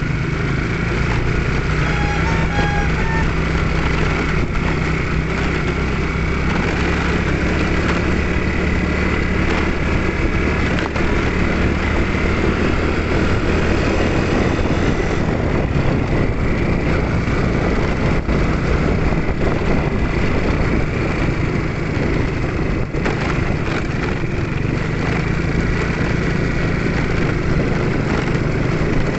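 A vehicle engine running steadily while driving, with road and wind noise mixed in.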